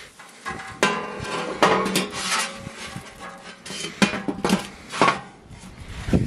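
Smoked chicken pieces being lifted off a steel smoker grate onto a metal baking tray: several clanks and scrapes of sheet metal, the tray ringing briefly after the knocks in the first few seconds.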